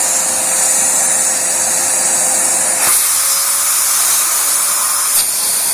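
Household vacuum cleaner running steadily, pulling air through an Ozon carburettor to stand in for engine vacuum: a constant loud rushing hiss with a faint steady whine. The sound shifts with a click about three seconds in, and there is another click near the end.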